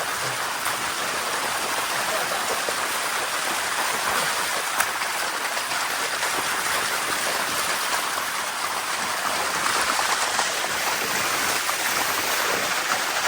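Steady rush of water cascading down the sticky waterfall's rocks, an even hiss with no break. A single sharp click about five seconds in.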